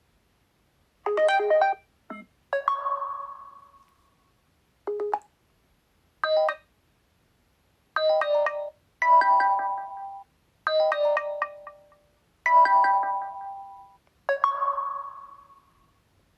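Oppo A16 phone notification tones previewed one after another: about ten short electronic chimes and blips, some single notes and some layered multi-note chimes with a fading tail, with brief silences between.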